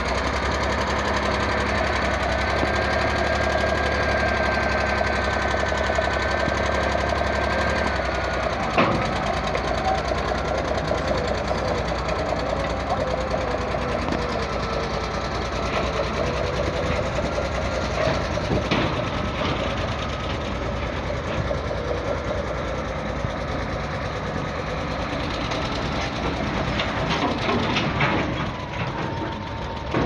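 Caterpillar crawler bulldozer's diesel engine running as the machine drives off a low-bed trailer and moves away along the road, with a sharp clank about nine seconds in and a few more knocks later.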